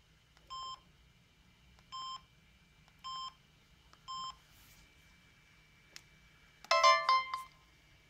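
Samsung SGH-C520 clamshell phone's keypad beeps: four short electronic beeps about a second apart as its menu keys are pressed. Near the end comes a click, then a brief, louder chime of several notes as the flip is shut.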